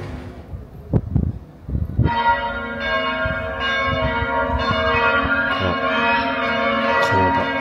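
Church bells of Amiens Cathedral start ringing about two seconds in, after a few low thumps. Several bells sound together in a continuous peal, with fresh strikes keeping the ringing going.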